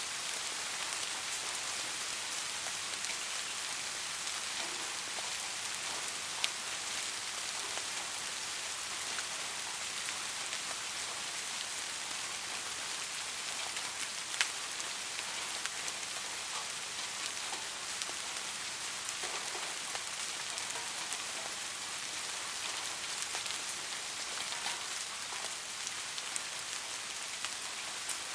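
Steady rain falling on a surface, an even hiss with scattered individual drop taps and two louder single drips, about six seconds in and halfway through.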